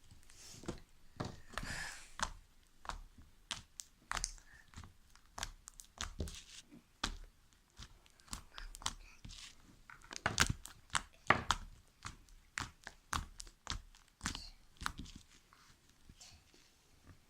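Slime being squeezed and stretched by hand, making many irregular crackling pops and clicks.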